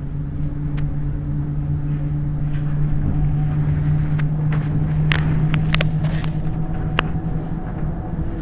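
Bombardier Flexity Outlook tram standing at a stop, its onboard equipment humming steadily with a low held tone over a rumble. A handful of sharp clicks come about five to seven seconds in.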